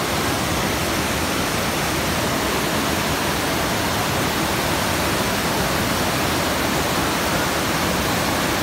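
Waterfall and the boulder-strewn stream below it rushing, a steady, unbroken sound of white water.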